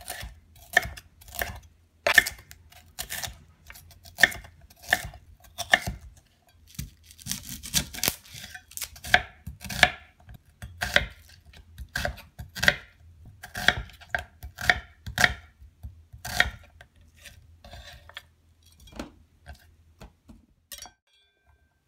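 Chef's knife slicing through a red bell pepper and then an onion on a wooden cutting board: a sharp knock of the blade on the board every half second to second, thinning out near the end.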